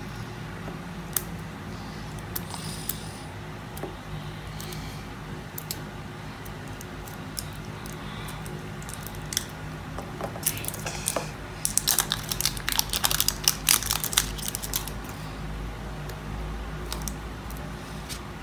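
Plastic wrapper crinkling and crackling as it is peeled off a plastic toy capsule by hand, with scattered clicks of the capsule being handled. The crackling is densest a little past the middle.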